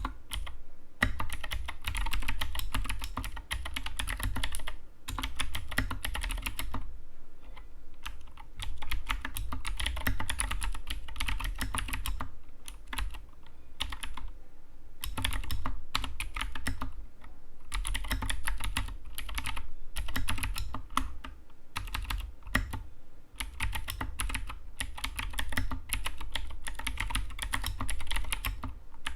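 Anne Pro 2 compact 60% mechanical keyboard being typed on in quick, dense runs of keystroke clicks, with brief pauses between runs.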